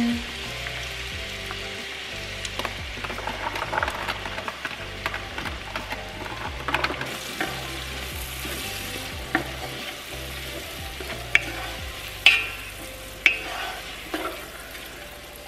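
Chopped onion, carrot and celery sizzling in butter and olive oil in a large stockpot as they start to cook, stirred with a wooden spatula. A few sharp knocks of the spatula against the pot come in the second half.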